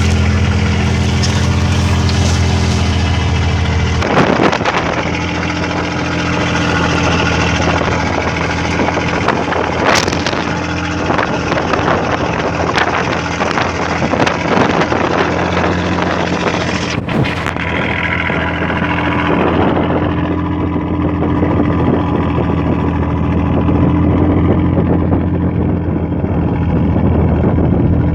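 A boat's engine running steadily under a constant rushing noise of wind and sea; its note changes about four seconds in, then holds.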